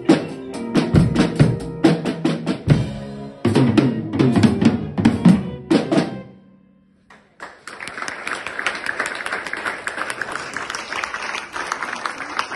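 Two drum kits playing together with bass drum, snare and cymbal hits, finishing on a last flurry about six seconds in and ringing out. After a second of quiet, an audience bursts into steady applause.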